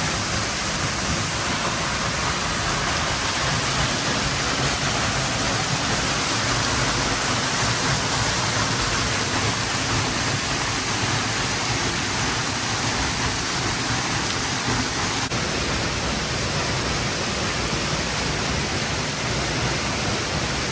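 Steady rush of a waterfall, an even wash of falling-water noise with no breaks. It brightens slightly about fifteen seconds in.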